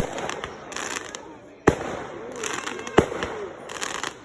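Fireworks going off: three sharp bangs, at the start, under two seconds in and about three seconds in, with crackling and sizzling in between.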